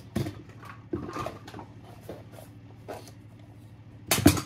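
Small plastic toys being handled and knocked together: a few scattered light clicks and knocks, then a louder quick cluster of clicks near the end.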